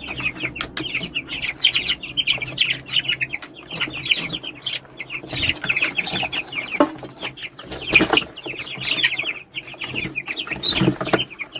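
A crowd of week-old broiler chicks peeping continuously in rapid, high chirps, with a few sharp taps mixed in.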